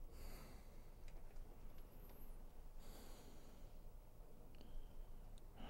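Faint breathing: two soft breaths, one at the start and one about three seconds in, over a low steady hum.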